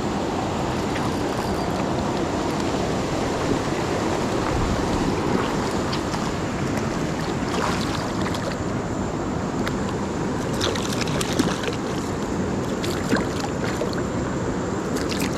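Steady rush of river water, with a few sharp clicks in the second half.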